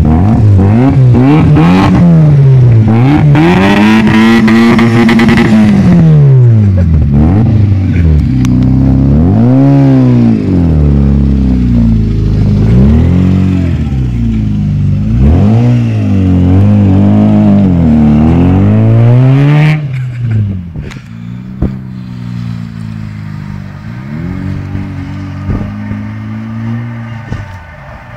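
Rover car engine revved over and over, its pitch climbing and falling about ten times, then dropping back to a quieter idle about twenty seconds in, with a couple of light blips near the end.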